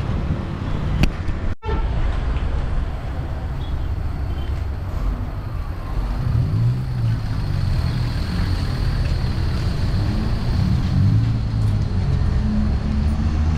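Motor vehicle engine running with a steady low rumble, with road traffic around it.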